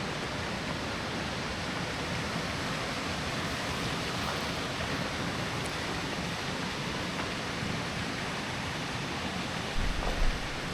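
Steady rushing of falling or flowing water, an even hiss without a break, with a few low thumps near the end.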